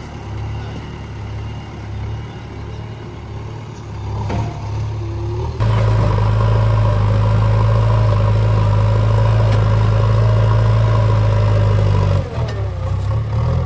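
Diesel engine of heavy earthmoving machinery running at a low, uneven level, then suddenly louder and steady with a whine over it for about six seconds before dropping back near the end.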